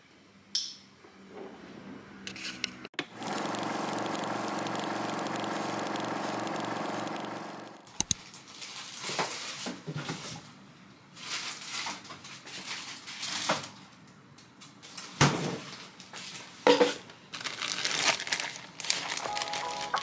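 Thin plastic bag crinkling and a plastic pitcher clicking and knocking as they are handled, in short irregular bursts from about 8 s on. Before that, a steady hum runs for about five seconds and ends at a sharp double click.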